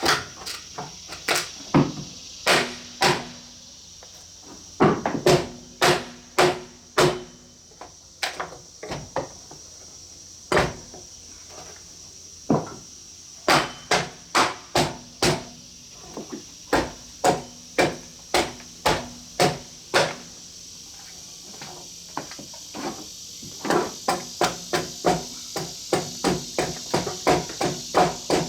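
Repeated hammer blows in runs of several strikes, about one to two a second, with short pauses between runs and a brief ring after each strike. Insects chirr steadily and high-pitched behind them.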